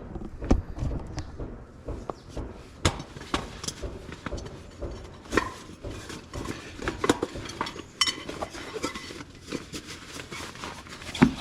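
Irregular clinks and knocks of camping gear being handled, like metal dishes and utensils being set down and moved about, with the loudest knock near the end.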